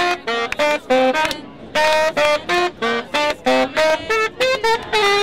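A reed instrument playing a melody in quick, separated notes.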